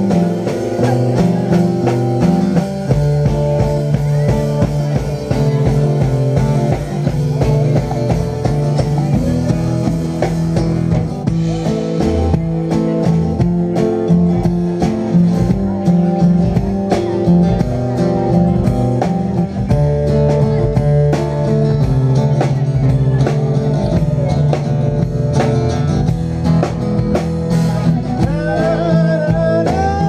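Live band playing a rock-blues song: amplified acoustic guitar strumming chords over a drum kit beat, with a voice singing near the end.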